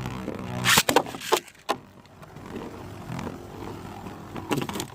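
Two 3D-printed Beyblade spinning tops whirring in a plastic stadium, with a steady hum and several sharp clacks as they collide, the loudest a little under a second in.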